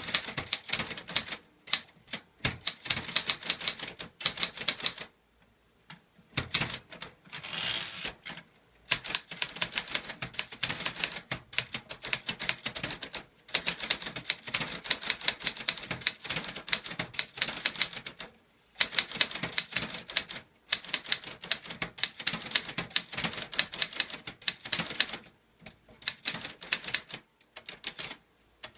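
Clover Top Star 10S Korean typewriter being typed without an ink ribbon: fast runs of sharp key-and-typebar clicks in bursts, with a few short pauses, and one longer rasping sound about eight seconds in.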